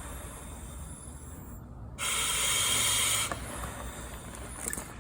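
Firefighter's air pack (SCBA) giving one hiss of compressed air, about a second long, starting about two seconds in.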